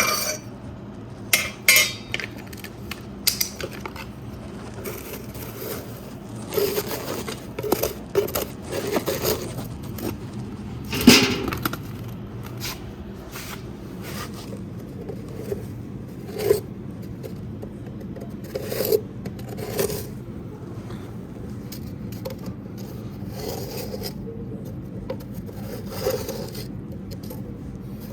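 Ash being cleared out of a homemade fireplace: irregular scrapes and knocks of a tool against the hearth, the sharpest knock about eleven seconds in.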